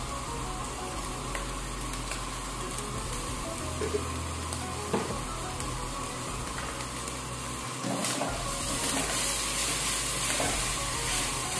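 Chopped hot dogs and chicken ham sizzling steadily in a stainless steel frying pan over a gas flame. From about eight seconds in the sizzle gets louder as a spatula stirs the meat around the pan.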